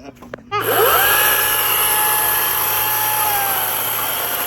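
Cordless electric chainsaw: the motor spins up with a quick rising whine, then runs at a steady pitch as it cuts through wood, the pitch sagging slightly under load.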